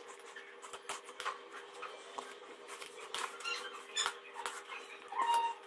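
Hand potato masher squashing boiled potatoes in a plastic bowl: soft, irregular clicks and scrapes as it presses through the potatoes and knocks the bowl, over a faint steady hum. A short pitched squeak comes near the end.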